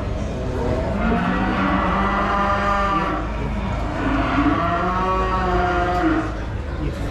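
Aberdeen Angus cattle mooing: two long, drawn-out lows, one after the other, over a steady low background hum.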